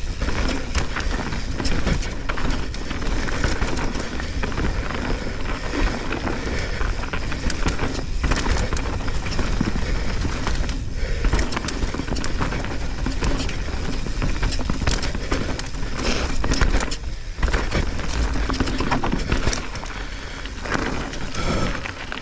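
Mountain bike being ridden fast down a dirt singletrack: tyres rolling over dirt and roots, with the bike's chain and frame rattling in many sharp clicks over the bumps, and wind rumbling on the microphone. The noise eases briefly a few times, around a third and a half of the way through and near the three-quarter mark.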